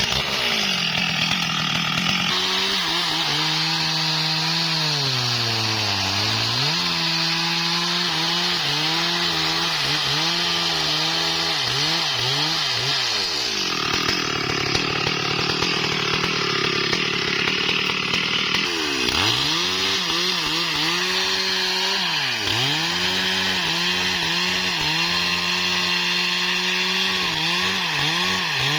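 Stihl MS 382 two-stroke chainsaw cutting wood, loud throughout. Its engine note sags under load and recovers again and again, with a long dip about six seconds in and quick repeated dips near the middle and toward the end.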